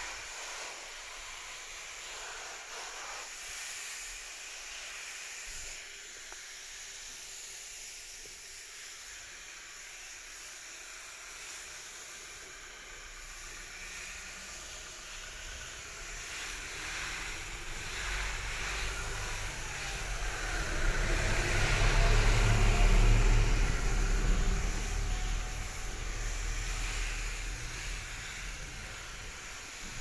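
Garden hose spray nozzle hissing as a shower of water falls on leafy plants. About twenty seconds in, a low rumble swells up for several seconds and then eases off.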